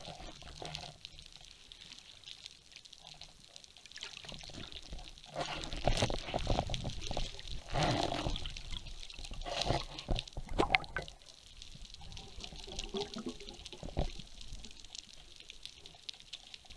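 Underwater sound picked up by a camera in its waterproof housing on a speargun: water rushing and gurgling against the housing as the diver moves, in swells that are loudest in the middle, over a steady hiss with scattered clicks.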